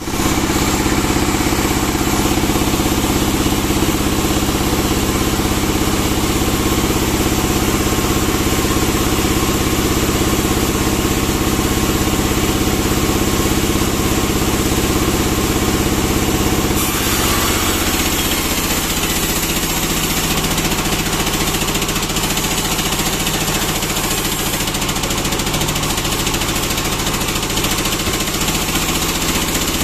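Sawmill band saw machine running steadily with a loud mechanical hum. About 17 s in the pitch of the hum shifts and a brighter, noisier hiss comes in.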